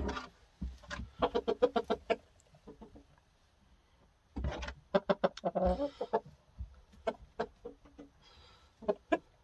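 Game rooster clucking in several bouts of quick, short clucks, about eight a second.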